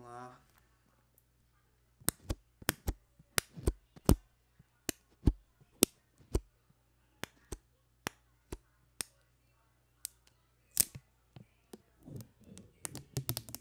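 Plastic shrink-wrap being peeled and torn off an iPhone box close to the microphone: irregular crisp crackles and snaps, starting about two seconds in and going on in uneven bursts.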